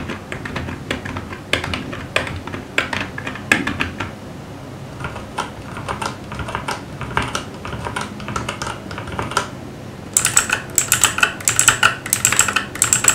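Typing on computer keyboards in turn for a sound comparison: a membrane keyboard and a linear red-switch mechanical keyboard. About ten seconds in, it switches to the louder, sharper clicking of a blue-switch clicky mechanical keyboard.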